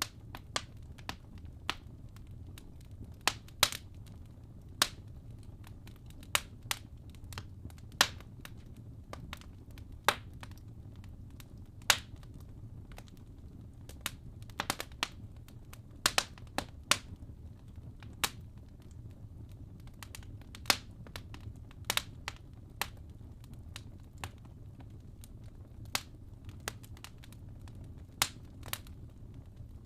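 Wood fire crackling in a fireplace: burning logs giving irregular sharp pops and snaps, a few every couple of seconds, over a low steady rumble of the flames.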